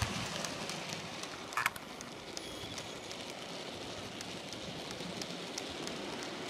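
Model freight train of open wagons rolling past behind a model diesel locomotive: a steady rushing noise from the wheels on the track, with scattered light clicks and a short rattle of clicks about a second and a half in.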